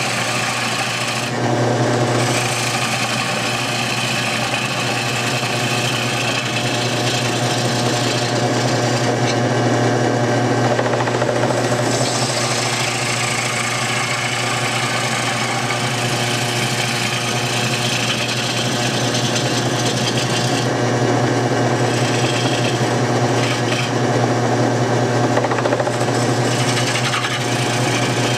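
Homemade wood lathe running with a steady motor hum while a cutting tool shaves the inside of a spinning green-wood bowl, a rough scraping and shaving noise. The cutting noise swells and eases as the tool is worked across the bowl.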